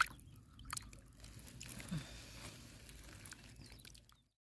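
Faint lapping of small ripples in shallow water at a reservoir's edge, with scattered small clicks; the sound cuts off suddenly near the end.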